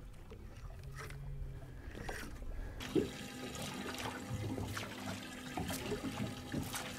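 Faint water splashing and trickling as a topwater popper lure is worked across calm sea, with small splashes from about three seconds in. A faint steady low hum runs underneath.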